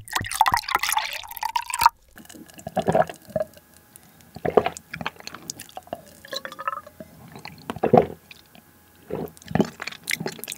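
Iced black tea poured from a bottle into a glass for about two seconds, the pitch of the pour rising as the glass fills; then a series of gulps as the tea is drunk down.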